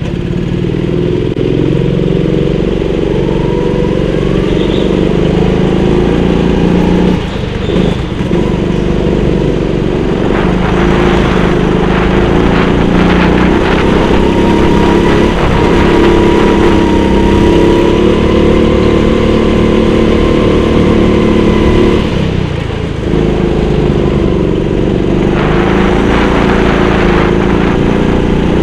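Go-kart engine running hard on track, heard close up from on board. Its note holds steady, then dips briefly twice and picks back up.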